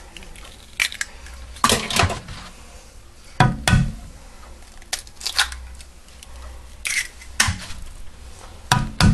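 Raw eggs being cracked and opened over a glass baking dish: a string of sharp eggshell cracks and crunches at irregular intervals, with clicks of shell and fingers against the dish.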